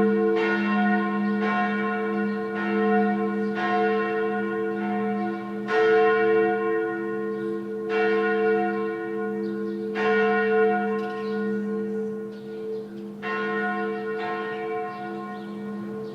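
A single church bell rung as a tocsin, the alarm bell, struck again and again with its tone ringing on between strokes. The strokes come about once a second at first, then more slowly, and the ringing fades toward the end.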